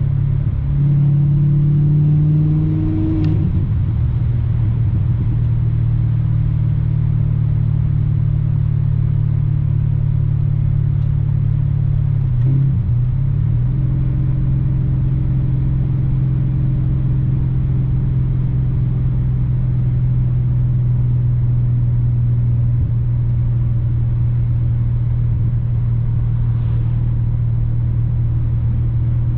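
BMW E39 540i's 4.4-litre V8, fitted with the 4.0 V8 intake manifold, running under way and heard from inside the cabin. The engine note rises briefly about a second in. It drops with a gear change about thirteen seconds in, then holds steady.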